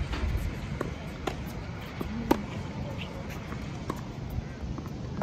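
Tennis rally on a hard court: sharp pops of rackets striking the ball and the ball bouncing, several spread over a few seconds, the loudest about two seconds in, over steady low background noise.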